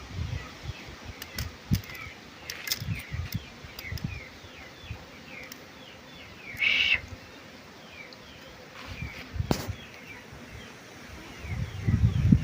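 Small birds chirping over and over in the background, with one louder, longer call about six and a half seconds in. Low knocks and handling thumps come and go, with a sharp click about nine and a half seconds in and a cluster of thumps near the end.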